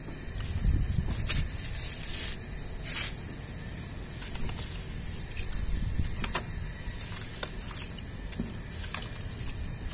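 Wet sand handled in a tub of muddy water: water sloshing and dripping as a packed ball of wet sand is lifted and worked by hand, with scattered short crackles of the sand crumbling off. A steady low rumble runs underneath.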